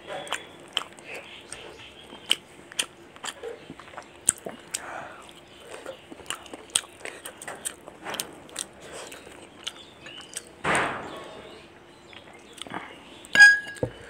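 Close-up mouth sounds of a person eating spicy chicken curry: a steady run of sharp wet chewing and smacking clicks. About two-thirds of the way in there is a louder rush of noise lasting about half a second. Near the end comes one sharp clink with a short ringing tone, the loudest sound.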